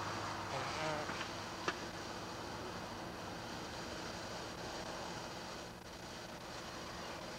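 Steady buzzing drone, with one sharp click a little under two seconds in.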